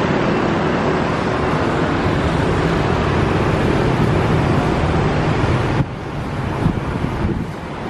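Road traffic on a wide multi-lane road: the steady noise of passing cars and motorbikes with a low engine hum, which drops suddenly about six seconds in.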